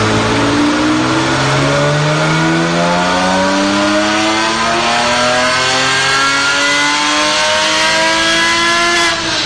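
Porsche 911 flat-six engine doing a power run on a four-wheel-drive chassis dynamometer: the revs climb steadily in one gear for about nine seconds, then drop suddenly as the throttle is lifted near the end.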